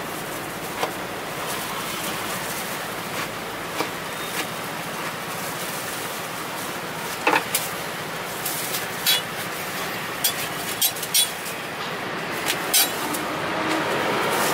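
A knife tapping and knocking on a plastic cutting board as strawberries are sliced: irregular sharp clicks, more of them and louder in the second half, over a steady hum of street background.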